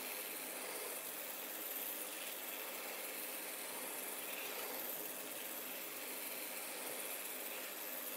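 Small hobby servo motors of a Quirkbot drawing robot arm running as they swing the arm and its marker, over a steady hiss.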